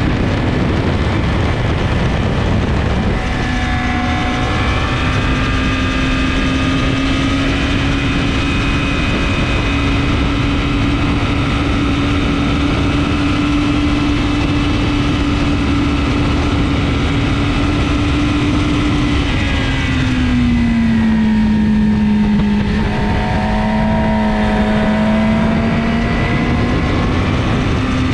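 Sport motorcycle's engine running at a steady pitch under loud wind rush at speed. The revs drop about two-thirds of the way through, hold lower, then rise again near the end.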